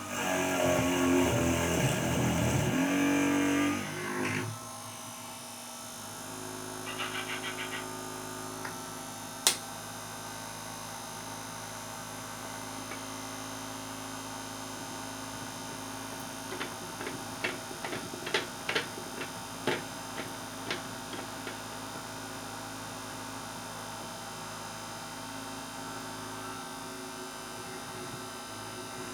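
Small DC motor of a homemade drill press running for about four seconds and then stopping. This is followed by a steady electrical hum, a short buzz, one sharp click and a run of light clicks.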